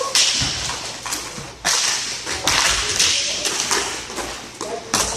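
Hockey sticks clacking and knocking against each other and the hard plastic rink floor during a scramble at the net: sharp, irregular taps over a steady high hiss.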